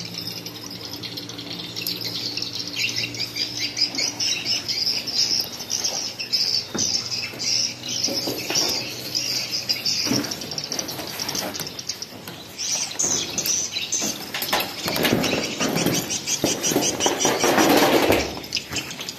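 Birds chirping and twittering in a dense, continuous chatter, with louder rustling noises in the last few seconds.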